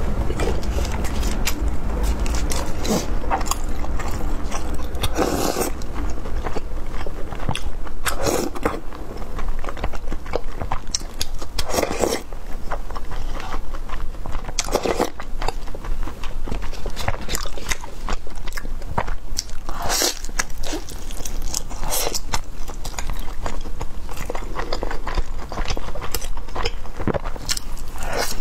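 Close-miked chewing and biting of large glutinous-rice shaomai, continuous wet, sticky mouth sounds with louder bites every few seconds.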